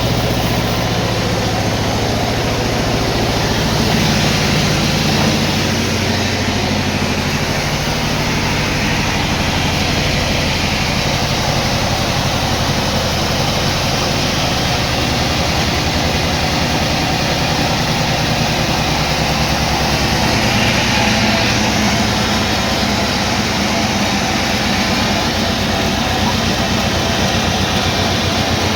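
Sawmill machinery running steadily: a continuous low engine-like hum with a broad hiss over it, rising slightly a few times.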